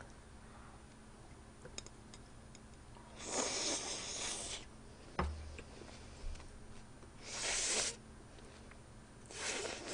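Three loud breaths out through the nose, about three, seven and nine seconds in, from someone chewing a mouthful with their mouth closed, close to the microphone. A single short knock comes about five seconds in.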